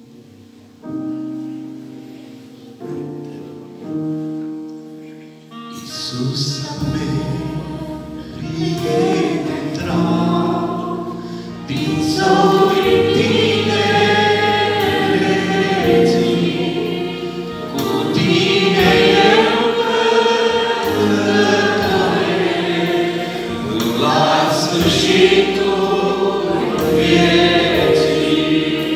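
Live Christian worship song: about six seconds of held keyboard chords as an intro, then a woman and men singing together into microphones over keyboard accompaniment with bass and a steady beat.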